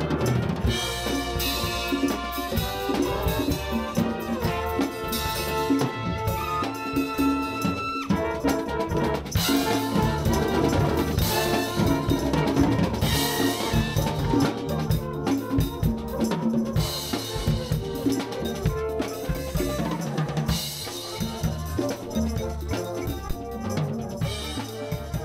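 Music with a steady drum-kit beat: bass drum and snare under held pitched notes.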